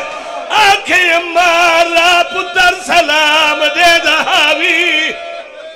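A man chanting a Punjabi lament for a majlis in a sung, wavering style, holding long notes with strong vibrato. His voice ends on a falling note about five seconds in.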